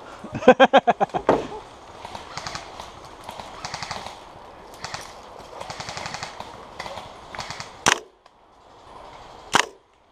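Airsoft gun firing a loud full-auto burst of about ten shots a second, then fainter bursts of airsoft fire further off. Two sharp single cracks come near the end.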